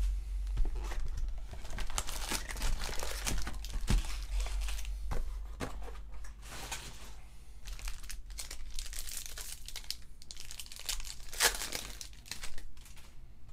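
Foil trading-card packs crinkling as they are handled, then a pack torn open by hand near the end, with sharp irregular crackles.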